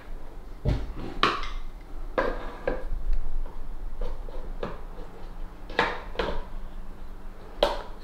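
A screwdriver prodding and scraping inside the plastic sump housing at the base of a condenser tumble dryer, which is clogged with jelly-like lint. It makes irregular clicks and knocks with short scrapes.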